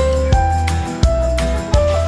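Background music with a steady beat: regular drum hits under bass notes and a simple held melody.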